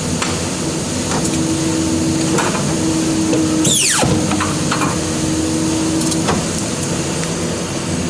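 Sharp blade cutting paper: several short rasping scrapes, and just before the middle one long slicing stroke that falls quickly in pitch. A steady hum runs underneath.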